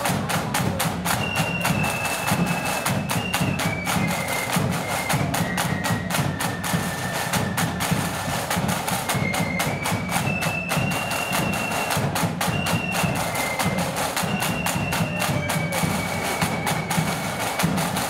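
Marching flute band: a line of side drums plays a fast, driving rhythm of crisp strokes, while flutes hold high notes of a simple melody above and a deep drum beat runs underneath.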